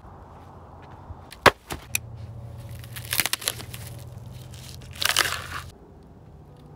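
Firewood being handled at a campfire ring. A sharp knock comes about a second and a half in, then crinkling and tearing as the plastic wrap on a firewood bundle is cut open with a knife, with a louder rustle about five seconds in.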